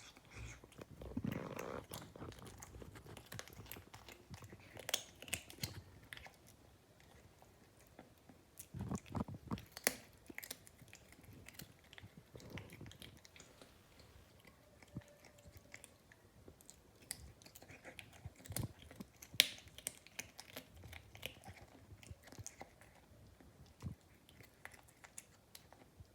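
A cat chewing food, with irregular soft clicks and bites spread through.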